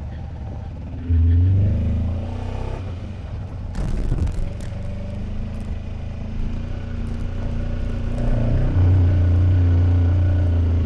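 Kawasaki Versys motorcycle engine running at low trail speed, the throttle opened about a second in and again near the end, with a brief clatter about four seconds in.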